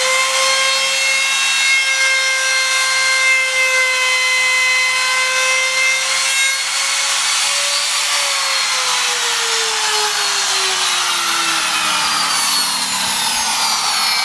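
Compact trim router with a flush-trim bit running at high speed, cutting along a curved wooden edge with a steady whine. About eight seconds in the motor is switched off and its whine falls steadily in pitch as it winds down over several seconds.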